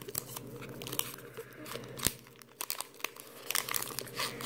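Foil wrapper of a Pokémon trading card booster pack crinkling and tearing as it is peeled open by hand: irregular small crackles, with one sharper click about two seconds in.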